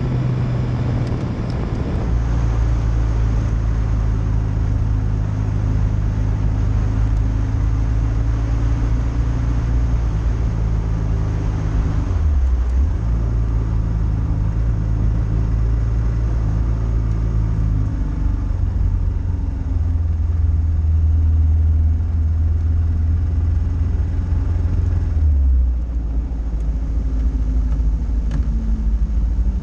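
Kawasaki KLR650 single-cylinder four-stroke engine running at a steady cruise on a gravel road, its note dipping briefly about halfway through and dropping again near the end. Wind and tyre noise sit under the engine.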